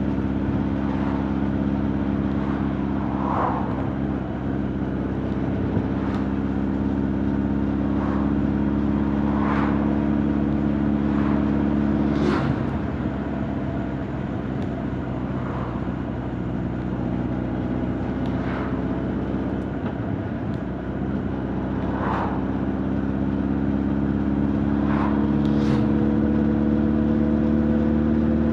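Honda CB1300 Super Bol d'Or's inline-four engine and exhaust running under way, heard from behind the rider. The steady note climbs slowly, drops abruptly about twelve seconds in, then builds again in the second half.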